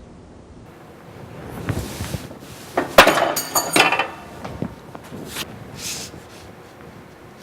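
Sheet metal being worked on a squaring shear: some sliding and scraping as the piece is positioned, then one sharp metallic clank with a short ringing tail about three seconds in as the blade comes down and shears a corner, followed by a few lighter metal clinks.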